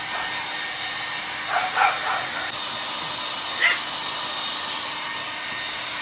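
Handheld hair dryer blowing steadily while drying puppies, with a puppy giving short yips: a couple about a second and a half in and one more near four seconds.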